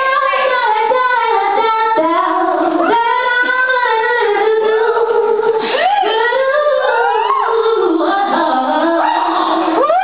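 A woman singing solo into a handheld microphone, with long held notes and sliding vocal runs.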